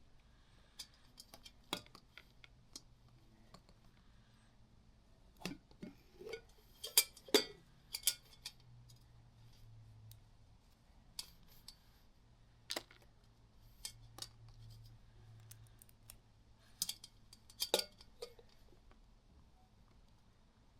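Scattered small clicks and knocks of hard objects being handled, a few at a time with pauses between, over a faint low room hum.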